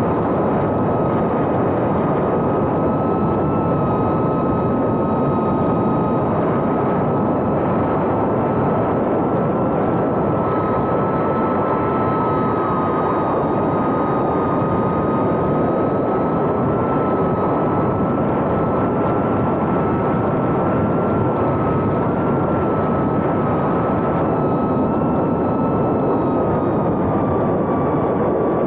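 Small FPV drone's four brushless motors (Happymodel 1404, 3500kv) and 2.5-inch propellers whining steadily in flight, picked up by the camera riding on the drone, with a constant rush of air noise. The high whine shifts only slightly in pitch with throttle.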